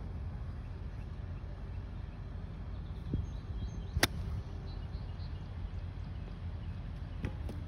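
A golf iron striking the ball once about four seconds in, a single sharp click, over a steady low rumble of wind on the microphone. The shot is a mishit that does not go as the player planned.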